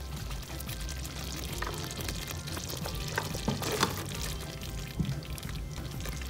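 Silicone spatula stirring bucatini through a simmering cream sauce in a skillet, with wet squishing and a few light knocks against the pan. Soft background music runs underneath.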